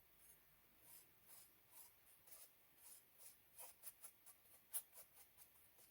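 Faint, irregular small clicks and light scratching, like small objects being handled.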